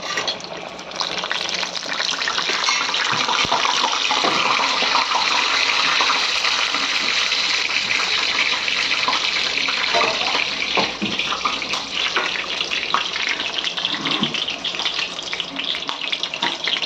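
Hot oil sizzling in a small pan as whole spices (cinnamon, cloves, cardamom) fry for tempering the curry. It is a steady hiss with scattered crackles, starting about a second in.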